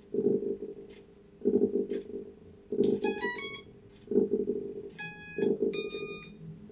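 Brushless motors of a freshly wired FPV quadcopter playing the Mamba ESC power-up tones: a quick rising run of beeps about three seconds in, then two longer high beeps, the sign that the ESCs have powered up and recognised the motors.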